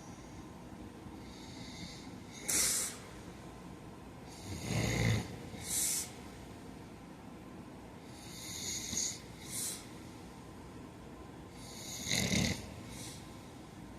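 A man snoring in his sleep, a breath every few seconds. The loudest snores carry a low rumble, and each is followed about a second later by a shorter hissing breath.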